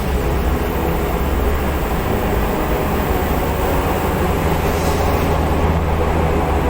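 Excavator's diesel engine running steadily, a continuous low rumble.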